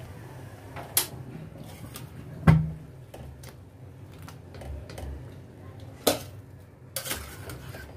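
A steel slotted spoon clinking and scraping against a steel cooking pot as boiled vegetable pieces are scooped out: a few sharp clinks, the loudest about two and a half seconds in.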